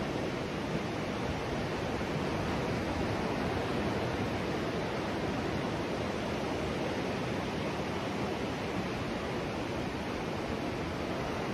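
Steady outdoor rushing noise, even in level throughout, with no distinct events.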